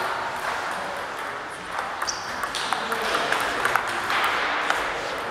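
Table tennis balls clicking off bats and tables, with clicks from several tables in play at once. The loudest clicks come about once a second in the second half, from a rally at the near table.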